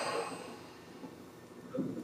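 Inside a Tobu 9000 series commuter train: a short hiss that fades out within about half a second, followed by quieter low rumble and knocks from the running car, with a thump near the end.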